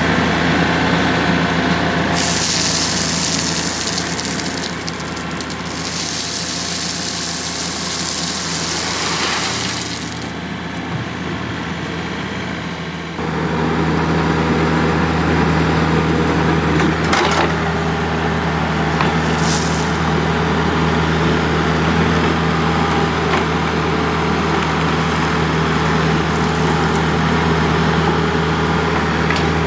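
Diesel engine of heavy equipment running steadily while working, with a rushing hiss during the first ten seconds. The engine gets louder about thirteen seconds in, and there are a couple of short sharp clicks a few seconds later.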